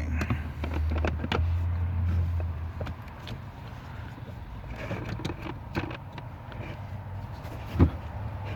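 Cabin air filter being worked into its housing behind the glovebox area: scattered scrapes and clicks of plastic being handled, over a low rumble that fades after the first few seconds, with one loud thump near the end.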